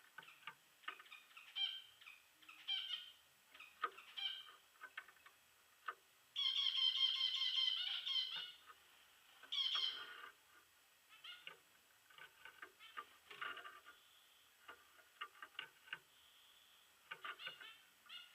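Small aviary finches, Gouldian finches and zebra finches, calling: many short chirps throughout, with a louder unbroken stretch of song about six seconds in lasting about two seconds.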